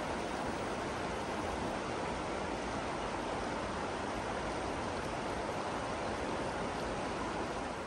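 Steady rushing of a flowing river: an even noise with no distinct events.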